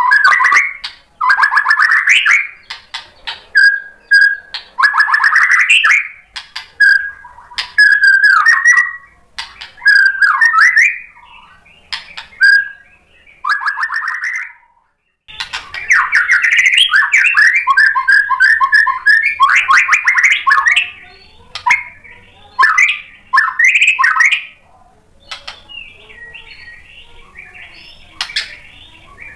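White-rumped shama singing: varied whistled phrases and quick trills broken by sharp clicking notes, with a brief break about halfway through. Near the end the song drops to a softer, quieter chatter.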